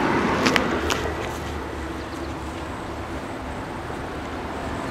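A steady low mechanical hum, with a few light clicks in the first second.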